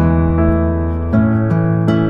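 Instrumental background music: slow, soft plucked notes, a new note or chord struck every second or so.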